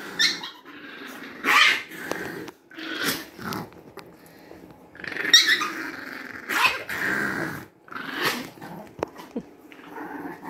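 Chihuahua growling at someone trying to pet her, with sharp outbursts every second or two: a small dog's warning to a stranger.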